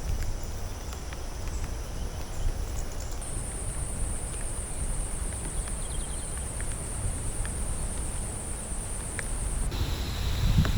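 Outdoor ambience of insects buzzing in a steady high drone over a low rumble, with scattered faint drips or ticks. The insect pitch shifts about three seconds in, and the rumble grows louder near the end.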